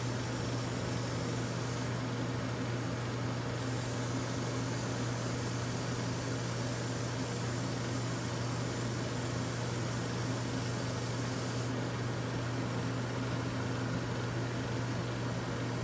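Airbrush painting equipment running: a steady motor hum under an even hiss of air.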